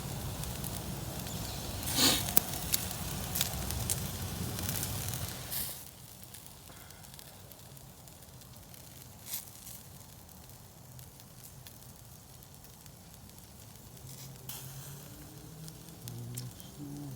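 Wood campfire burning with crackles and sharp pops, louder for the first six seconds, then quieter with only an occasional pop.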